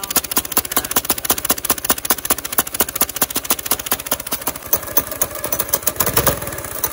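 Small single-cylinder go-kart engine running through a trumpet fitted as its exhaust, a fast, even train of loud, sharp exhaust pops, so loud the audio is distorted. Past the middle a steadier tone comes in and the engine picks up slightly. It is breathing through the trumpet's narrow mouthpiece, which chokes it and leaves it down on power.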